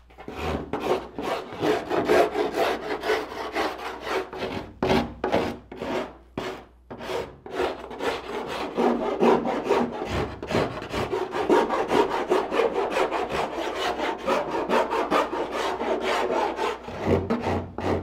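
Hand rasp being worked in quick back-and-forth strokes, two to three a second, along the wooden edge of a kayak's laminated cockpit coaming. It is rounding over the edge by hand where the router base is too large to reach.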